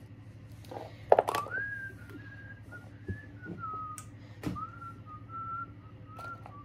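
A person whistling a wandering tune to themselves for about five seconds, with small clicks and knocks of plastic toy accessories being handled. The loudest knock comes about a second in.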